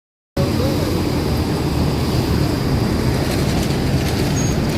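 Doha Metro train running, a steady low rumble with a faint high whine. It cuts in abruptly about a third of a second in.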